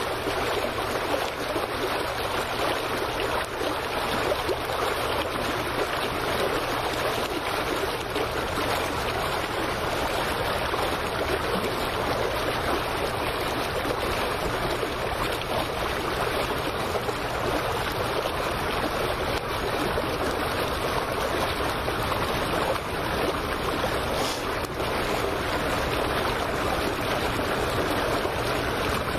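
Steady rushing noise of wind and lapping water at the water's edge, unchanging throughout.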